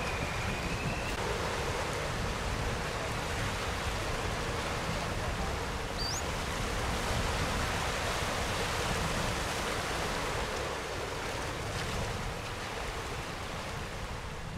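Ocean surf: small swells washing over kelp-covered rocks below a cliff, a steady rush of water. A short, high rising whistle cuts in briefly about six seconds in.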